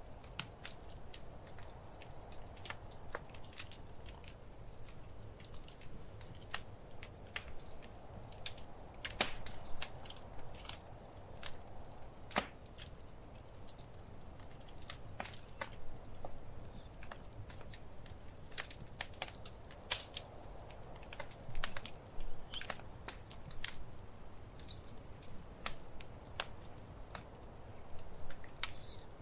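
Wood fire crackling in a fireplace: irregular sharp pops and snaps, some louder than others, over a steady low rumble of the flames.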